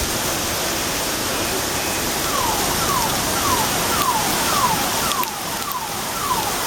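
Heavy thunderstorm rain pouring down steadily. About two seconds in, a car alarm starts sounding: a repeating falling tone, about two sweeps a second.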